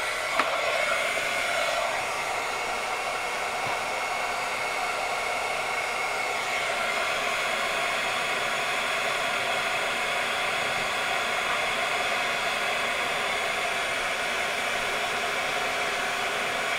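Handheld craft heat gun for embossing running steadily, its fan blowing hot air to melt embossing powder on a stamped card.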